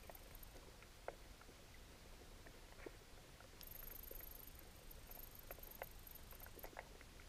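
Near silence of underwater ambience, with scattered faint small clicks and ticks. A faint high-pitched whine comes in a few seconds in and stops near the end.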